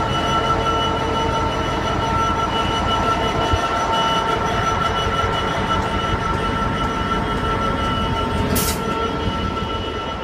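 British Rail Class 66 diesel locomotive passing close by, its EMD two-stroke V12 engine running with a steady low drone and several steady whining tones above it. A brief hiss about eight and a half seconds in.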